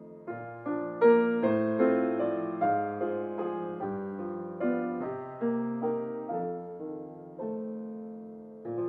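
Acoustic grand piano played solo in waltz time: notes and chords struck one after another and left to ring and fade, the loudest chord about a second in.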